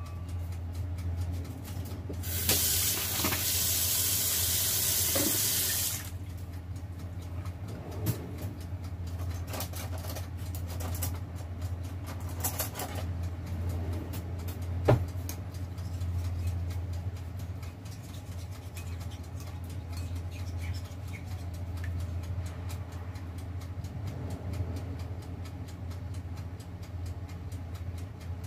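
Water tap running into a kitchen sink for about four seconds, starting two seconds in, over a steady low hum; a few light knocks follow.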